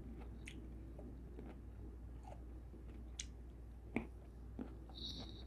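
A person chewing and biting juicy fresh fruit: soft wet mouth clicks and squishes, with one sharper click about four seconds in.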